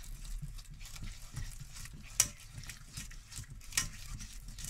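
Nylon whisk working a thick, lumpy bechamel paste of roux and milk in a non-stick saucepan, making repeated soft stirring strokes. A sharper tap comes a little over two seconds in and another near the end.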